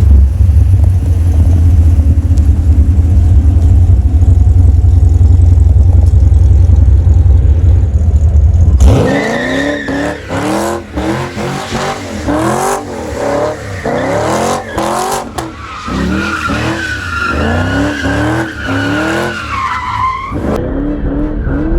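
Chevy SS V8 with long-tube headers and aftermarket exhaust: a loud, deep low rumble for about nine seconds, then the engine revving up and down again and again. A high tire squeal comes in over the revving in the second half.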